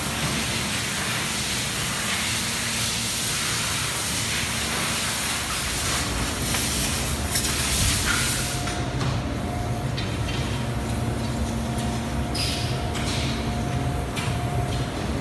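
Factory machinery running: a steady low hum under a hiss that fades about halfway through, after which a faint steady whine holds.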